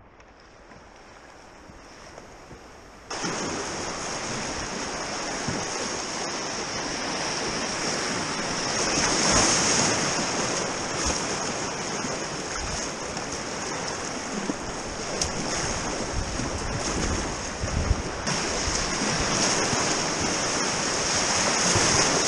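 Rushing water of grade 3 river rapids heard from a kayak: quiet flowing water for about the first three seconds, then a sudden jump to loud, steady whitewater rushing, with a few short splashes.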